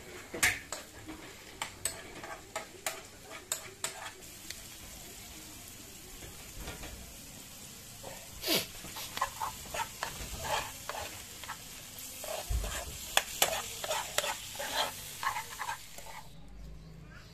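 River clams and chopped chili sizzling in a frying pan while being stirred, the metal spoon scraping and clicking against the pan again and again. The sizzling drops away near the end.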